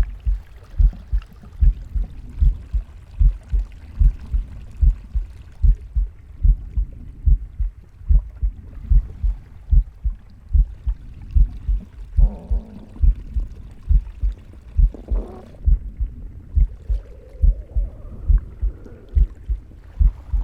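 Heartbeat heard close up, an even run of deep paired thumps, lub-dub. About two-thirds of the way through, a few softer, higher sounds of breathing or the gut come and go over the beat.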